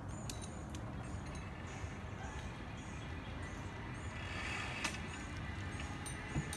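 Quiet outdoor background in a forest: a steady low rumble with a few faint sharp clicks, twice near the start and twice near the end, and faint high chirps.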